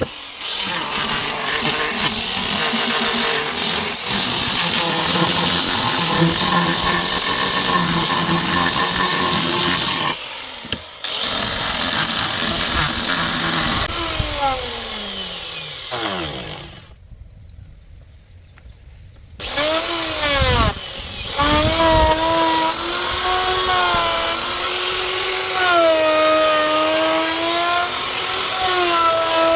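Electric power tool motor running on wood. About halfway through it winds down to a stop, then it spins back up and runs on, its pitch wavering as the load changes.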